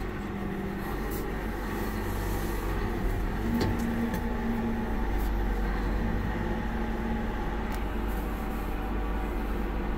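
Case IH Steiger 580 four-wheel-drive tractor running steadily under way, its diesel engine a low, even hum heard from inside the cab.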